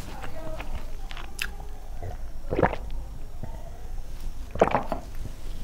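Close-miked eating sounds: chewing and lip smacking, with two louder short mouth sounds about two and a half and four and a half seconds in. The second comes as she drinks water from a steel tumbler, a slurp and gulp.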